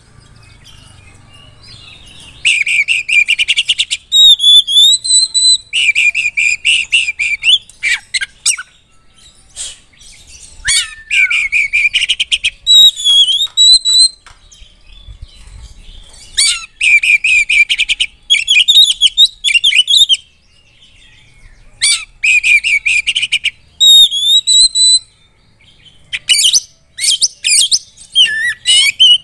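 Male oriental magpie-robin singing loudly and continuously. Its varied song runs in phrases of a second or two: clear whistled glides and fast rattling runs of notes, with short pauses between them.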